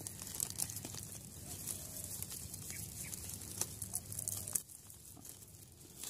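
Clear plastic bag crinkling and rustling in the hands as it is fitted over a dry-grass bird nest, in light, scattered crackles.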